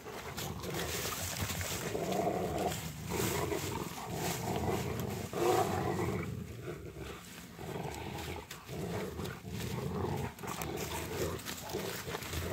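Rottweilers growling in play as they tug at a stick and branches, a run of repeated low growls.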